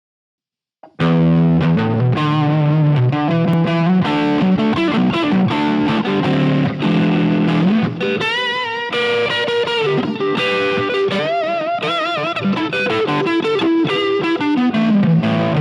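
Overdriven electric guitar riff played on a Line 6 Variax modelling guitar on its Spank setting, through a Line 6 amp modeller's Son of Plexi preset, a crunchy jumped-Plexi amp tone. It starts about a second in, and some held notes carry vibrato around the middle and again a little later.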